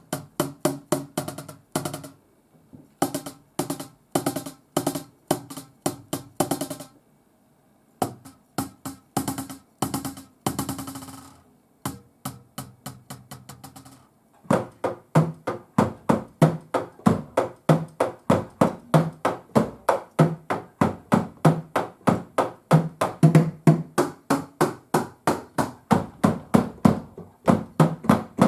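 Sticks striking the mesh-head pads of a Roland TD-17KV-S electronic drum kit, heard acoustically without the module's sound: dry, knocking hits in short groups, a fast roll about ten seconds in, then a steady fast run of even strokes from about halfway on.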